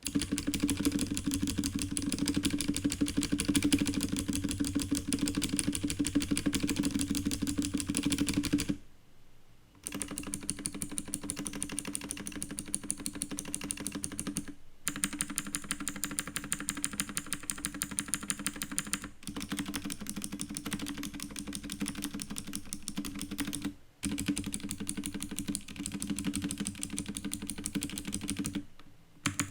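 Fast, continuous typing on a K550 tenkeyless mechanical keyboard with blue clicky switches: a dense run of keystroke clicks and clacks. It stops for about a second around nine seconds in and breaks off briefly a few more times.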